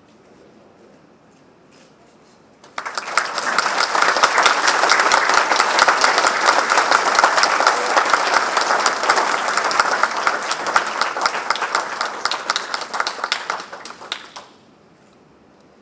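Crowd applauding: the applause breaks out suddenly about three seconds in, holds steady, and dies away near the end.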